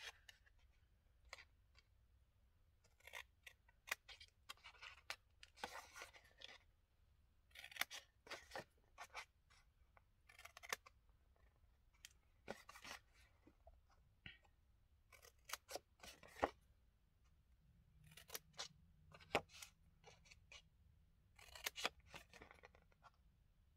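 Small paper snips cutting V-shaped notches out of designer series paper. Short, irregular snips, often several in quick succession, with pauses between cuts.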